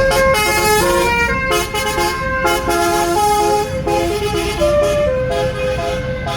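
Tour bus telolet horn playing a tune: several horn tones sounding together and stepping quickly from note to note.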